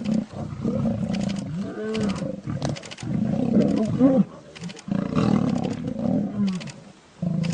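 Male lions fighting, their roars and growls coming in repeated loud bursts, with a short lull a little past the middle and another near the end.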